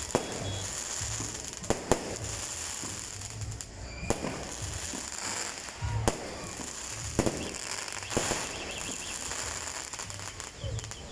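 Fireworks display: aerial shells bursting in sharp bangs every second or two, about eight in all, over a steady background hiss.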